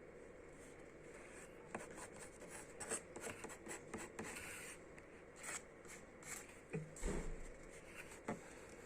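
Sticker sheets and packaging being handled: scattered light rustles, scrapes and taps, with a soft thump about seven seconds in.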